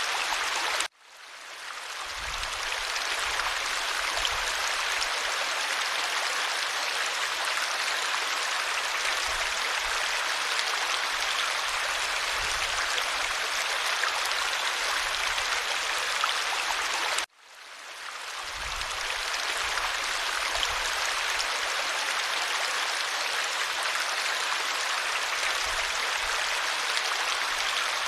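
Stream water running steadily, an even rushing hiss. The sound cuts out abruptly twice, about a second in and again about seventeen seconds in, and each time swells back to full level over a second or two.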